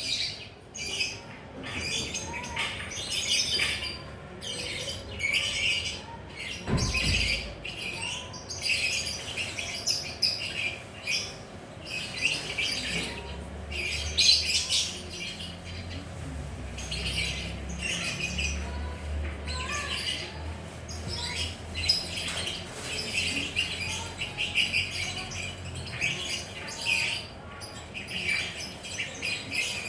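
Lovebirds chattering: a dense, unbroken run of short, shrill chirps and squawks.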